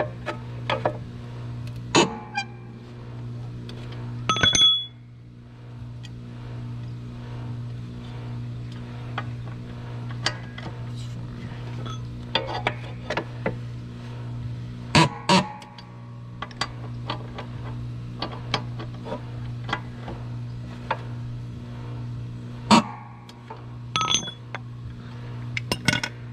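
Steel hand tools working the blade bolt of an upturned Toro rotary mower: scattered metal clicks and clinks, with louder ringing clanks about four seconds in, around fifteen seconds, and several near the end. A steady low hum runs underneath.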